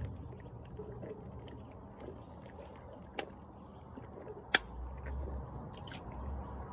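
Mouth and swallowing sounds of someone chugging a Monster Mega energy drink from the can, with small scattered clicks, a sharp click about three seconds in and a louder one about four and a half seconds in.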